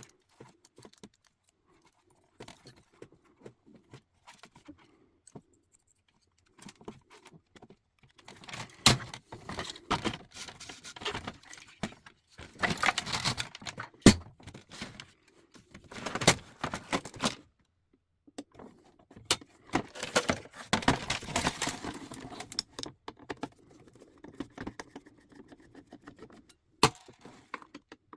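Small metal parts of an old typewriter clinking and rattling as it is taken apart, with sharp clicks now and then. Faint scattered clicks at first, then two busy stretches of jangling about eight seconds in and again near the twenty-second mark.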